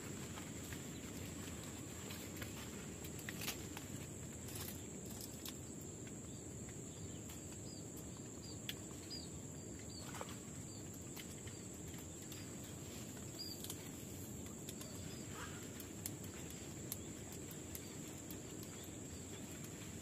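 Quiet outdoor background with a steady high thin whine, a few faint, short bird chirps and scattered light clicks and rustles of hands handling the glue-stick rods.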